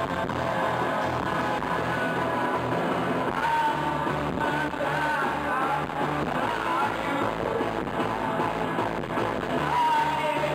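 Live band music, guitar-led, with a voice singing and calling out over it partway through.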